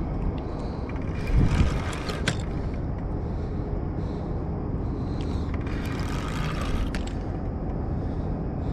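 Spinning fishing reel working under the strain of a hooked catfish, giving two rasping, clicking bursts over a steady low rumble.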